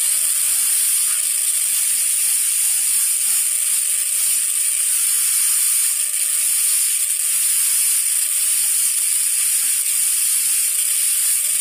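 High-speed air-turbine dental handpiece with a cylindrical bur running at a steady high-pitched whine and hiss, grinding the occlusal surface of a plastic typodont premolar to join the depth-orientation grooves into planes during occlusal reduction.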